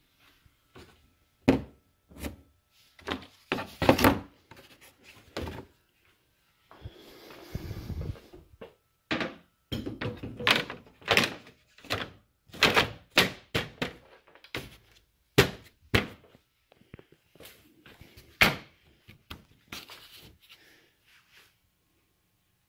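Hard plastic knocks and thunks, irregular and sometimes in quick runs, as the 2017 Chevy Silverado's plastic upper radiator cover is handled and set into place. About seven seconds in there is a scraping rustle lasting a second or so.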